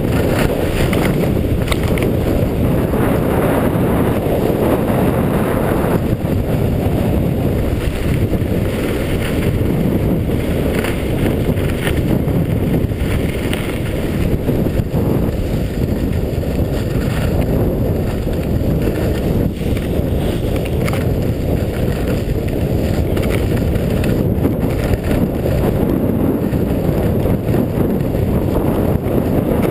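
Steady wind rumble buffeting a chest-mounted GoPro's microphone as the skier moves downhill, with skis hissing and scraping over packed snow in patches through the turns.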